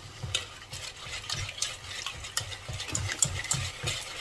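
A utensil stirring white chocolate into hot cream for a ganache, scraping and tapping against the sides of the vessel in a steady rhythm of about three strokes a second while the chocolate melts.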